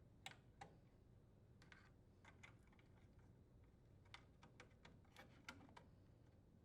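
Faint, scattered small clicks of wire connectors being pushed onto the terminals of a microwave's control board, with the plastic board and panel being handled.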